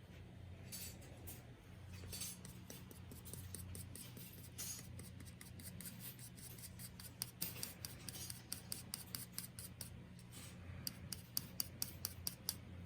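Hand tools working thin brass or copper sheet: a series of short, sharp metallic snips and clicks, scattered at first and then in quicker runs of several a second, over a faint steady hum.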